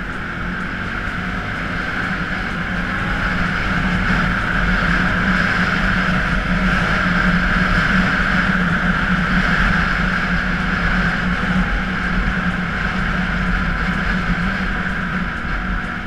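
Can-Am Outlander ATV engine running steadily at speed, with tyre and wind noise from riding on gravel; it grows slightly louder toward the middle and eases off again.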